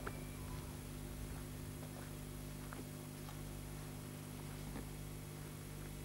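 Steady low hum and hiss of an old camcorder recording, with a few faint scattered ticks.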